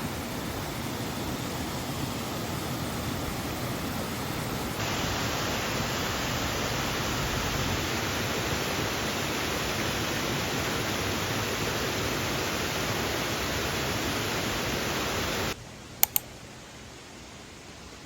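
A steady, even rushing noise with no distinct tones, changing abruptly in colour about five seconds in and cutting off sharply near the end. Two short clicks follow the cut-off.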